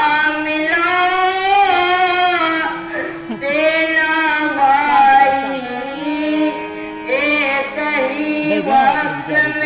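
A voice singing a slow, wavering lament with long melodic ornaments, over held instrumental notes: the sung verse of Rama's lament in a Ramlila stage play.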